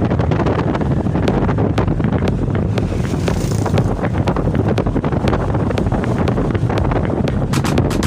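Wind buffeting the microphone: a steady, dense low rumble with faint clicks running through it.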